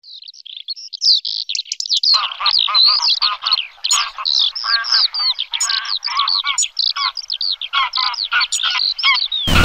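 Songbirds singing, a dense run of quick chirps and whistles. A second, lower-pitched bird joins in about two seconds in. The song is cut off right at the end by a sudden loud noise.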